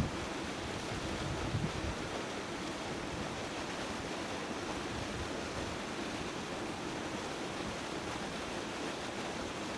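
Wind blowing across the microphone: a steady rushing noise with a few low buffets about one and a half seconds in.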